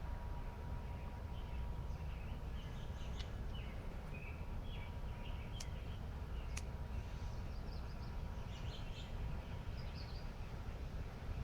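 Small birds chirping in short scattered calls over a steady low outdoor rumble, with two sharp clicks about a second apart near the middle.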